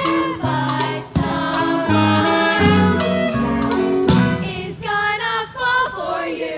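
Young performers singing a musical-theatre song over instrumental accompaniment.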